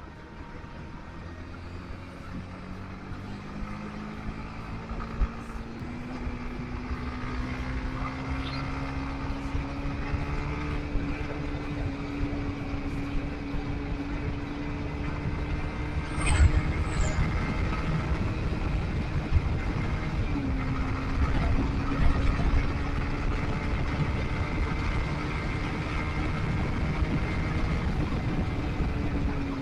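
Motorcycle engine running under way, its pitch climbing as it accelerates over the first several seconds, then holding steady and dropping briefly about two-thirds through; a steady rumble of wind and road noise runs underneath, with a short high squeal and a louder knock about halfway through.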